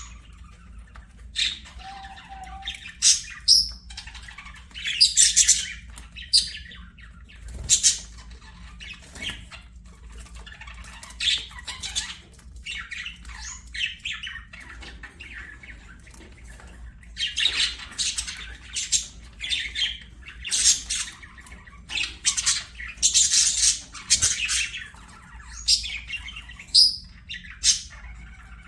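Budgerigars chattering: a busy run of short squawks and chirps, with quieter gaps, then thicker near the end. A faint steady low hum sits underneath.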